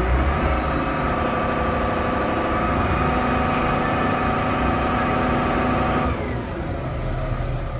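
A truck engine sound running steadily, its tone shifting about six seconds in.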